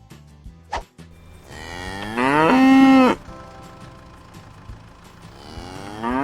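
A cow mooing: one long moo that rises in pitch and then holds steady, and a second moo beginning near the end.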